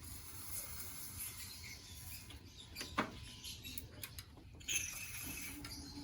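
Faint clicks and short high squeaks of plastic air-conditioner parts being handled and unclipped, with one sharper click about halfway through.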